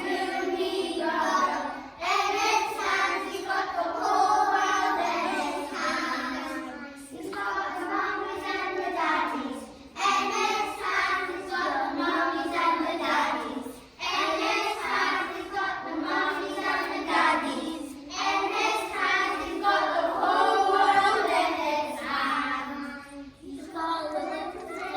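Group of children singing a song together, in phrases of about four seconds each with short breaks between them.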